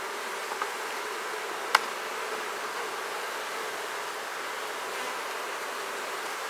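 Honeybees buzzing in a steady hum from an open hive as its frames are worked, a sound the beekeeper takes for the roar of a queenless colony. A single sharp click about two seconds in.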